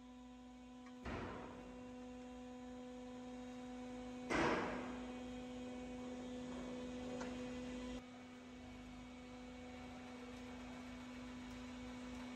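Hydraulic press's motor and pump humming steadily, with two sudden loud cracks about a second in and about four and a half seconds in, the second the louder: ductile iron pipe breaking under the press.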